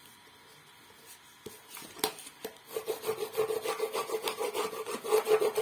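Thumb and fingers rubbing a masking-tape pattern shell flat onto a sheet of paper: quick scuffing strokes that start about a second and a half in and grow louder, with one sharp tap about two seconds in.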